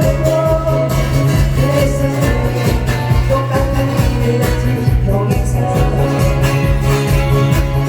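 Loud music over a sound system, with a steady, even beat under a melody line.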